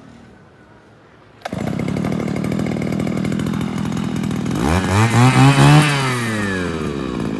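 Small engine of a grass cutter starting abruptly about a second and a half in and running steadily, then revving up sharply and dropping back to idle near the end.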